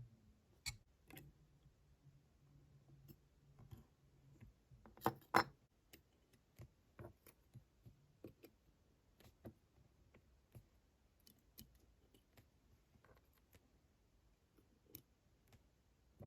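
Small, scattered metal clicks and taps of watchmaker's tools handling the parts of a Waltham pocket watch movement, the loudest a close pair about five seconds in.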